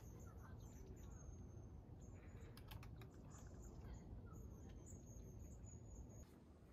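Near silence with a faint low outdoor rumble. About two and a half seconds in comes a quick cluster of small clicks as a small rechargeable camping lantern is handled on its hanging pole. Faint high chirps sound in the background.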